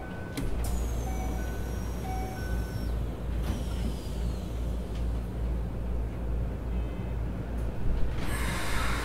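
Inside a Keikyu New 1000 series (1800 subseries) electric train standing at a station: a steady low hum of onboard equipment, with a few short electronic beeps in the first couple of seconds and two faint falling whines. About eight seconds in comes a loud hiss of released brake air.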